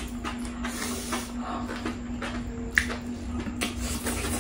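Close-miked chewing of saucy, spicy food: wet mouth smacks, squishes and clicks in quick succession, with a sharp clink about three seconds in. A steady low hum runs underneath.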